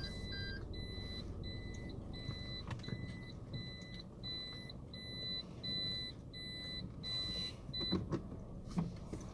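A car's electronic warning beeps, sounding about twice a second over low engine rumble. They stop a little before the end, followed by a few sharp clicks.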